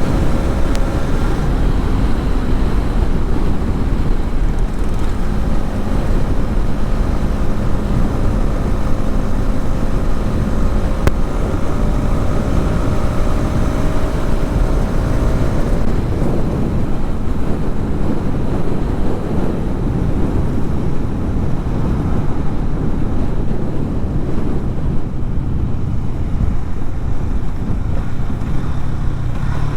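Hero Xtreme 250R's single-cylinder engine running while riding, with heavy wind rumble on the microphone. The engine note rises slowly through the first half, then sinks under the wind noise.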